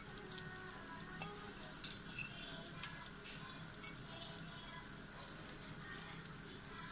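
A pot of spiced water at the boil, bubbling faintly and steadily with light scattered ticks, as soaked biriyani rice is tipped in off a wooden spatula.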